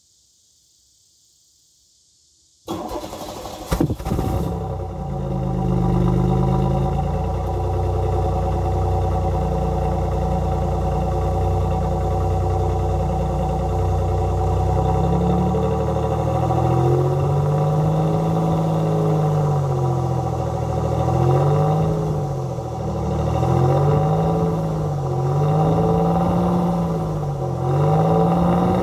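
1988 Oldsmobile 98 Regency Brougham's 3.8-litre V6 exhaust at the tailpipe: the engine starts about three seconds in, with a sharp knock a second later, then runs. From about halfway on it is revved in short blips, the pitch rising and falling about every two seconds.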